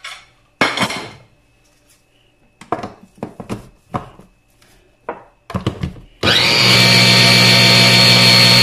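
Clicks and knocks of an electric mini food chopper's bowl, lid and motor unit being handled and fitted, then about six seconds in the chopper motor starts and runs steadily with a constant whine, blending crushed biscuits with milk.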